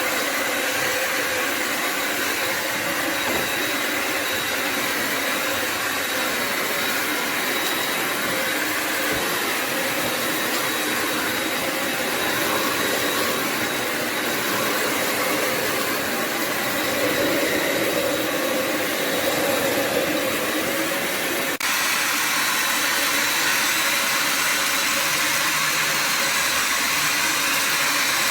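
Bissell Symphony Pet vacuum and steam mop running: a loud, steady whir from its vacuum motor. Near the end the tone changes abruptly and a lower hum comes in.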